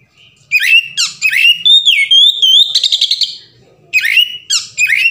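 Male oriental magpie-robin singing loudly in a string of clear whistled notes, many sliding down in pitch, with a rapid buzzy trill in the middle. The song breaks off for half a second about three and a half seconds in, then starts again.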